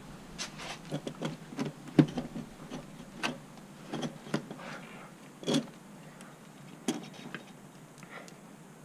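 Irregular metallic clicks, taps and knocks of hand tools and loose parts being handled on a motorcycle engine during disassembly, with the sharpest knocks about two seconds and five and a half seconds in.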